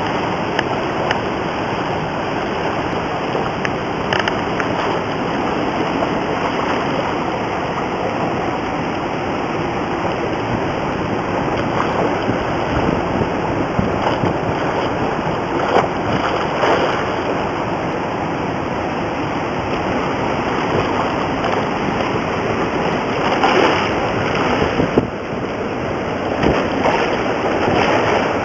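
Steady rush of water released through Kaw Dam's open spillway gates, churning as whitewater in the river below.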